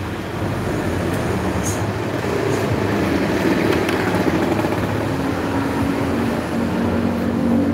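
Steady road-traffic noise from passing vehicles. About five seconds in, a nearer vehicle's engine hum comes in and holds.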